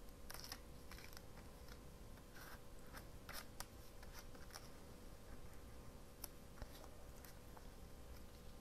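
Faint scattered clicks and rustles of paper and washi tape being pressed down and handled by hand, most of them in the first half.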